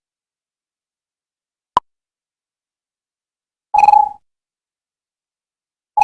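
Synthetic computer sound effects separated by silence: a very brief blip, then about two seconds later a short electronic beep lasting about half a second, with the same beep starting again right at the end.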